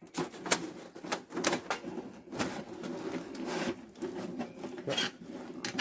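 Thin titanium stove flue pipe being worked down over the stove's flue collar by hand: irregular metallic clicks and knocks, with a longer scrape of metal on metal a couple of seconds in.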